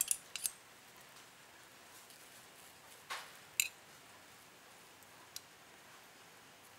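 A metal spoon lightly clicking and tapping against a ceramic bowl as seasoning is spooned onto soy-marinated laver: a few quick clicks at the start, two more about three seconds in, and one faint tick a little later, over a quiet room hiss.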